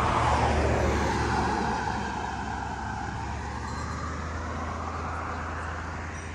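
A car passing on the road, loudest about a second in and then fading away as a rushing sound.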